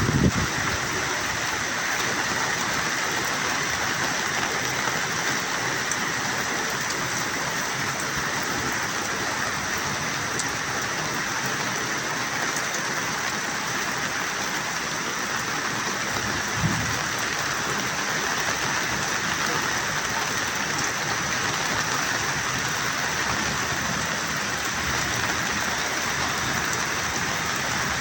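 Steady hiss of heavy rain falling, with one brief low thump about halfway through.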